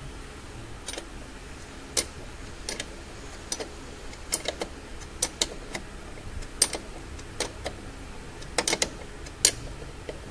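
Metal ring spanner clicking on a top-mount nut of a newly fitted Mercedes ML 350 front air strut as the nut is done up: sharp, irregular metallic clicks about once a second, some in quick pairs.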